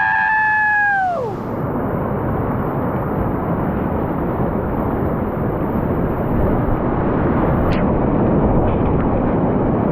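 A long, held whoop of a shout for about the first second, then whitewater rapids rushing loudly and steadily.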